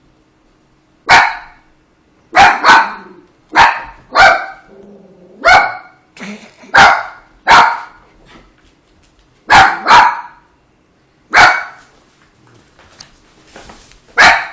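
A dog barking loudly: about a dozen sharp barks, some single and some in quick pairs, spaced irregularly with short quiet gaps between.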